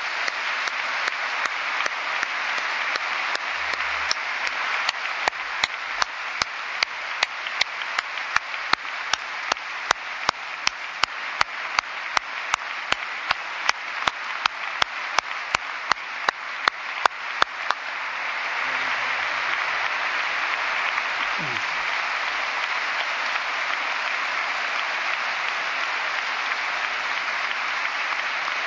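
Large indoor audience applauding steadily. From about five seconds in to about eighteen seconds, a sharp click stands out above the applause, repeating evenly about two or three times a second.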